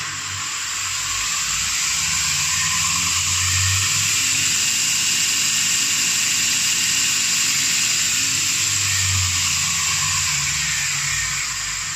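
A speed-controlled belt sander running with no load on a freshly fitted abrasive belt. There is a steady hiss of the belt over its wheels, with a thin high whine and a low motor hum that swells twice.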